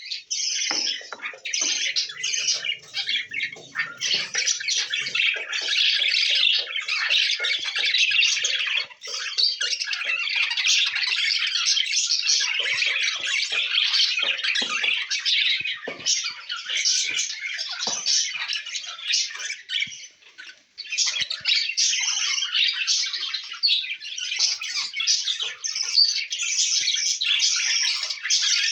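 A colony of budgerigars chattering and squawking without pause, a dense high twittering with harsh squawks mixed in, as adults feed their chicks. The noise breaks off for a moment about two-thirds of the way through.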